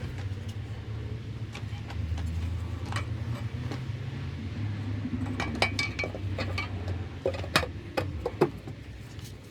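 Several sharp metallic clinks and knocks, bunched in the second half, over a steady low hum that fades out near the end.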